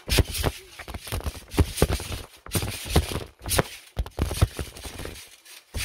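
Irregular thumps and knocks of people jumping on a trampoline, picked up by a phone lying on the mat as it is bounced about. The thumps come a few times a second and pause briefly near the end.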